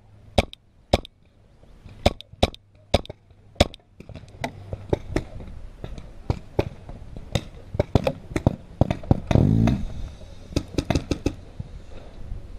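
Paintball markers firing single shots at an irregular pace, sharp pops with some in quick pairs. About three-quarters of the way through there is one longer, louder noise.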